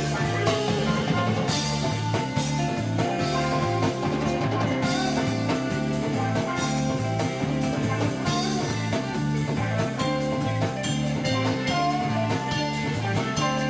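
Band jamming live with no vocals: guitar playing over a drum kit keeping a steady beat.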